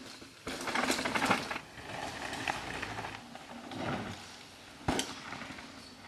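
Mountain bike ridden fast along a dirt trail: tyres rolling over dirt and roots, with the bike clattering and rattling. It comes in suddenly about half a second in and gives one sharp knock near the end.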